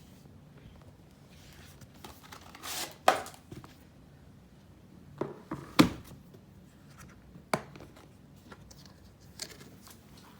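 Packaging being handled and opened: bursts of rustling and crinkling, with several sharp knocks and clicks, the loudest about three seconds in and just before six seconds in.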